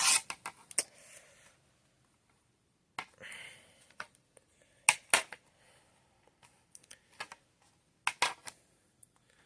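Scattered sharp clicks and light taps with a short rustle about three seconds in, from handling the ceiling fan's wooden blades.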